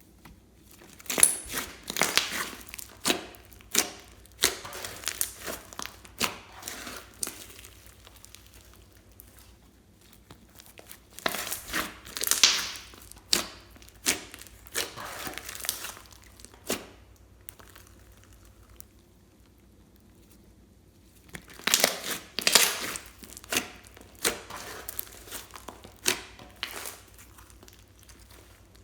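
Slime being squeezed and worked by hand, giving off crackling, popping clicks. These come in three spells of activity: about a second in, from about eleven to sixteen seconds, and from about twenty-one to twenty-six seconds, with quieter stretches between.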